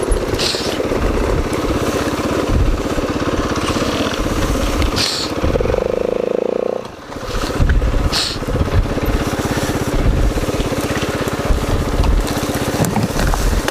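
Dirt bike engine running at low speed with the throttle opening and closing as it pushes through brush, with short swishes of branches and undergrowth brushing past. About seven seconds in the engine note holds steady, then drops off briefly before picking up again.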